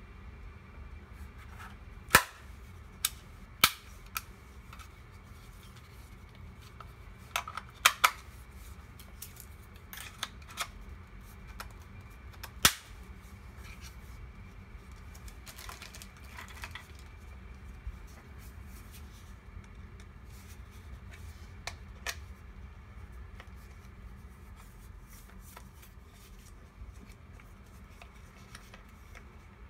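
Sharp plastic clicks and snaps from handling a Sharper Image dashboard camera and fitting its suction-cup mount, scattered irregularly, the loudest in the first half, over a low steady hum.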